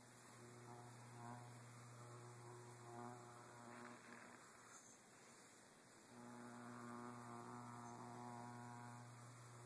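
Faint, low electrical buzz from the lid of a plugged-in HP Pavilion dv6 laptop as a finger is lightly run across it, sounding like an electrical discharge. The buzz swells and fades, cuts out briefly a little past the middle, then comes back stronger.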